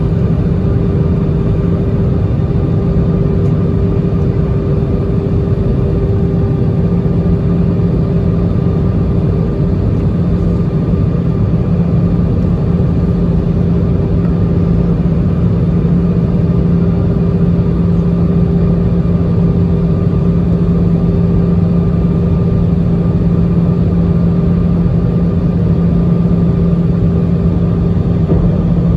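Jet airliner cabin noise heard from a seat over the wing during the landing approach: a steady rush of air and engine noise with a constant low hum.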